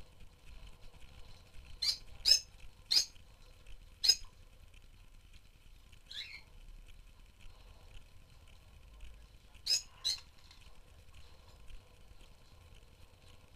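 Rosy-faced lovebirds giving short, shrill chirps: four in quick succession between about two and four seconds in, a single falling call about six seconds in, and two close together near ten seconds, over faint continuous twittering from the flock.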